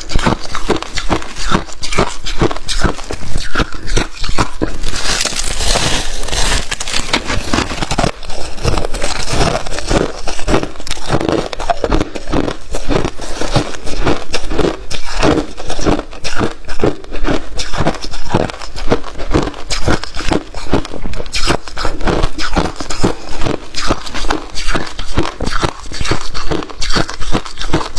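Freezer frost being bitten and chewed close to the microphone: a continuous run of dense, crackling crunches.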